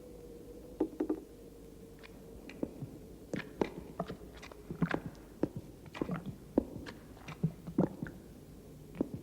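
An irregular series of short, sharp clicks and knocks, starting about a second in and coming thickest through the middle, over a faint steady hum.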